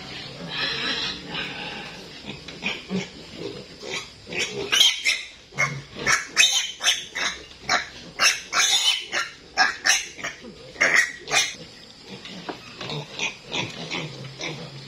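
Piglet squealing in a run of loud, shrill shrieks while held upside down by a hind leg for an injection; the squeals come thickest through the middle, with fainter squeals before and after.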